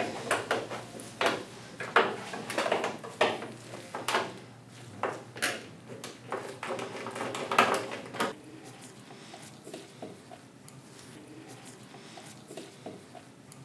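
Clicks, clinks and light rattles of a tool working small brass nuts off the display's corner studs and the parts being handled, busiest for about the first eight seconds, then only faint ticks.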